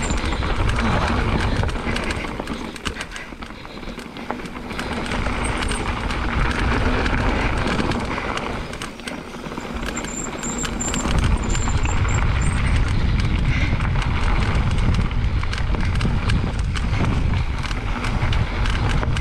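Mountain bike riding down a rocky trail: tyres crunching over loose rock shards, with a steady clatter of knocks and rattles from the bike over the bumps and a low rumble of wind on the microphone that eases twice.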